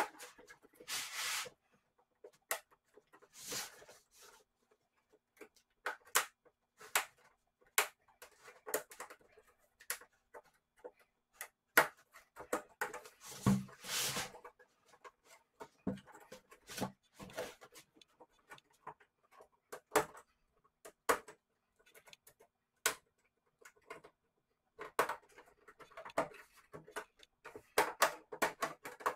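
Scattered clicks, taps and short rubbing sounds of LED TV parts being handled by hand: the screen panel being lifted and plastic frame pieces being unclipped.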